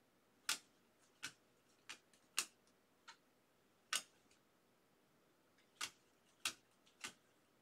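Glossy trading cards being flipped through one by one, each card clicking against the stack as it is moved: about nine short, faint clicks at uneven spacing, with a pause of nearly two seconds past the middle.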